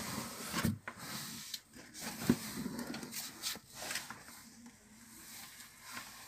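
Rubbing and scraping noises with several sharp knocks, the loudest a little over two seconds in.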